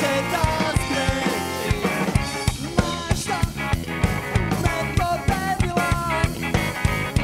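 A rock band playing live: a drum kit keeps a steady beat under an electric bass and a melodic line.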